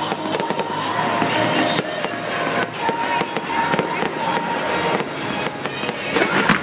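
Aerial fireworks display, shells bursting with a dense, continuous run of bangs and crackles.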